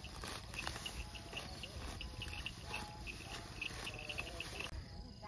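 Crickets chirping in short, high, irregular bursts that cut off abruptly near the end, over a low steady rumble.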